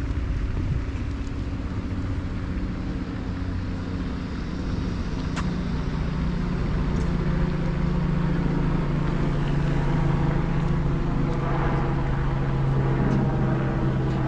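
A steady low engine hum that grows louder through the second half, with a single sharp click about five seconds in.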